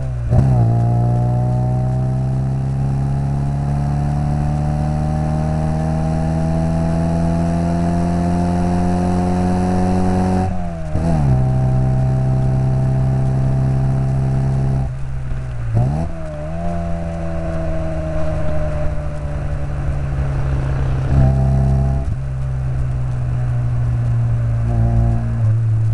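Classic Mini's 1275cc A-series four-cylinder engine running through a Maniflow long-centre-branch manifold and twin-box RC40 exhaust while driven. The revs climb slowly under load, then hold steady, with three brief sharp dips and recoveries in revs along the way.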